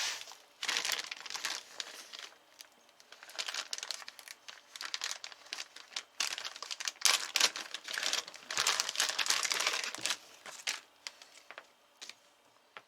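Packaging being handled and unwrapped: crinkling and rustling in irregular bursts, busiest over the second half.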